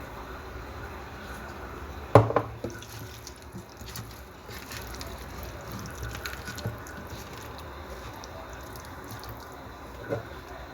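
Water dripping and splashing at a sink as something is washed. There is a sharp knock about two seconds in, a second just after it, and a softer knock near the end.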